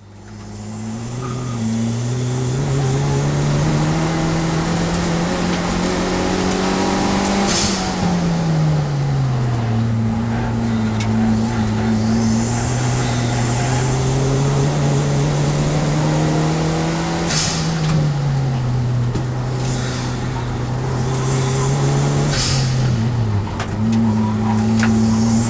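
Fiat Seicento Turbo race car's engine heard from inside the stripped cabin, pulling hard with its note climbing slowly. The note falls away twice as the throttle is lifted for corners, each time with a short burst of hiss.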